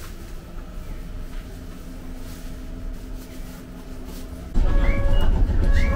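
Randen tram running, heard from inside the car: a steady low rumble with a faint motor hum. About four and a half seconds in it gives way abruptly to a much louder sound of several steady tones with short chirps repeating about twice a second.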